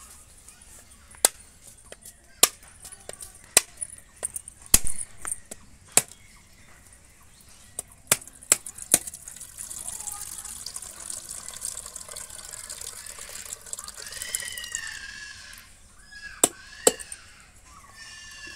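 A machete blade knocks against a coconut shell in a series of sharp single strikes to crack it open. About ten seconds in, the coconut water pours out into a steel bowl with a steady splashing trickle for a few seconds. Two more strikes on the shell come near the end.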